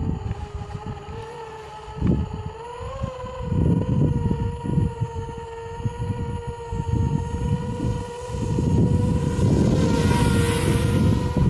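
Electric motors of a Blackout-clone FPV mini quadcopter whining at a steady pitch in flight, the pitch lifting slightly about three seconds in. A low, gusty rumble of wind on the microphone runs under it, with a brief hiss near the end.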